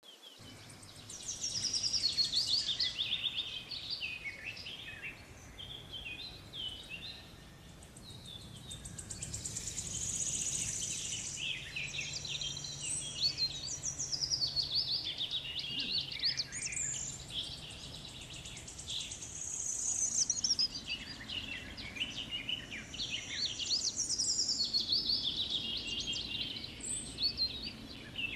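Songbirds chirping and singing in bouts of quick, high, twittering notes, with short lulls between the bouts.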